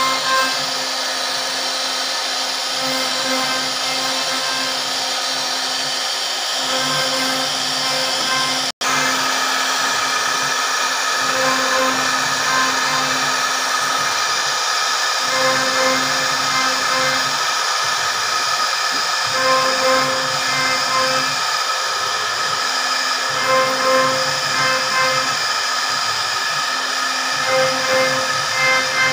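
CNC router spindle whining steadily as its cutter routes a decorative profile into a wooden frame, the lower cutting hum swelling and fading in a rough rhythm as the bit works along the rail.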